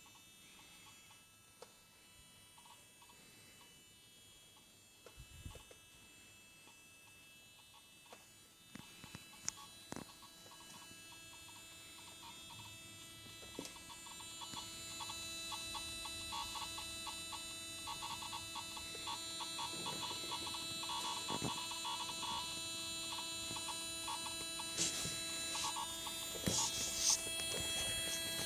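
Volkswagen Golf 5's 2.0 SDI diesel engine running: a steady buzzing hum with several high whining tones and scattered light clicks, gradually growing louder.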